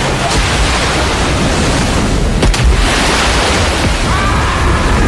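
Storm at sea: heavy waves crashing and splashing over a ship's deck under steady wind. A sharp crack comes about two and a half seconds in, followed by a surge of breaking water.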